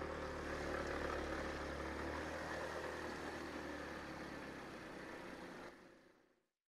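Sinnis Shuttle scooter engine running steadily at low road speed, with road and wind noise; the sound fades out to silence about six seconds in.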